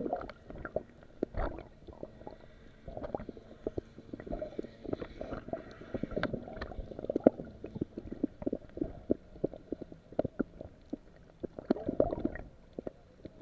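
Muffled underwater sound picked up by a submerged camera: water gurgling and sloshing against the housing, with many irregular small clicks and knocks.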